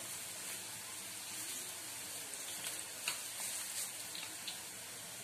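Battered amaranth leaves deep-frying in hot oil: a steady sizzle, with a couple of faint pops about three seconds in.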